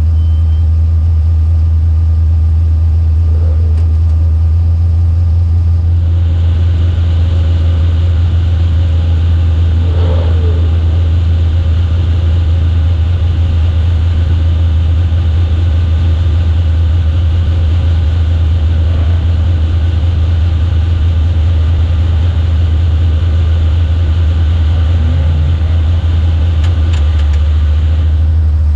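A vehicle engine idling with a steady low drone. About six seconds in, a steady higher hiss joins it.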